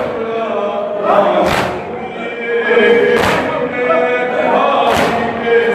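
A group of men chanting a noha, a Shia mourning elegy, in chorus, with the crowd striking their chests in unison (matam): three slaps about 1.7 seconds apart over the chant.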